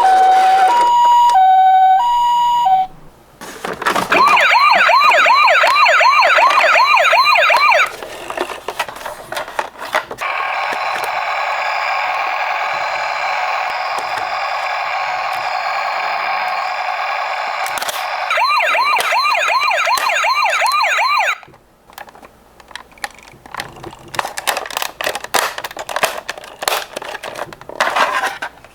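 Toy ambulance's electronic siren: first a hi-lo two-tone, then a fast warbling yelp, a steady tone for several seconds, and the yelp again. Near the end it gives way to scattered plastic clicks and rattles from the toy.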